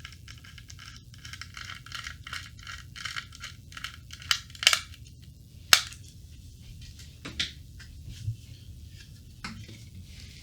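Metal computer-case parts being handled while a drive plate is worked loose: a quick run of small rattling clicks and scrapes, then several sharp metallic clicks and taps, the loudest about halfway through.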